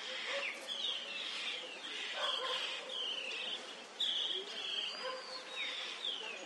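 Wild birds singing and calling together, many short falling chirps overlapping one another, with a few lower notes among them.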